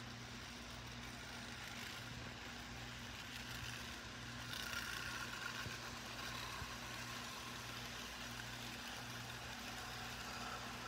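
Model train running on the layout's track: a steady low electric hum with a light rolling rattle that grows louder about four seconds in.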